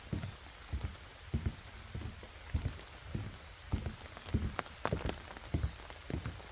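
Footsteps at a steady walking pace, a step a little under every second, with rain falling all around and a few sharp raindrop ticks.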